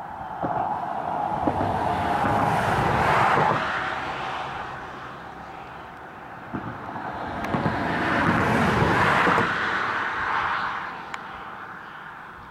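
Two vehicles passing by one after the other, each a broad rush that swells and fades over about four seconds, with a few faint clicks in the second half.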